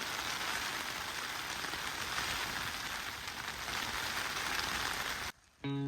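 Heavy rain falling steadily. It cuts off suddenly about five seconds in, and guitar music starts just before the end.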